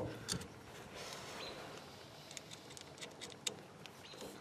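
Faint small clicks and ticks of hands working a rubber fuel line's hose clamps and fitting, with one sharper click at the very start and a scatter of light ticks around the middle.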